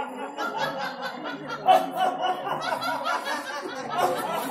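Several people laughing and snickering over one another.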